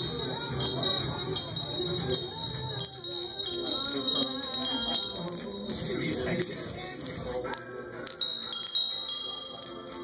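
Small metal wind chimes tinkling as they are set going by hand: quick, overlapping high-pitched rings, a few strikes a second. From about six and a half seconds in the tones change, and lower rings from larger tube chimes join near the end.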